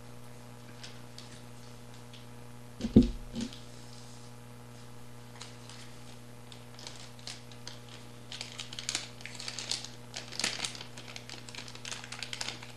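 A single low thump about three seconds in, then anti-static plastic bags crinkling and crackling as they are handled over the last five seconds or so. A steady low electrical hum runs underneath.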